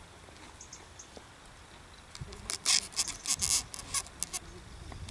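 Irregular rustling and crackling close to the microphone for about two seconds, starting a little past the middle.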